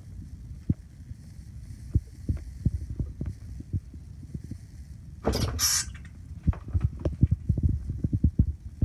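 Handling noise from a handheld phone: irregular low knocks and thumps, with a short rustling burst about five seconds in.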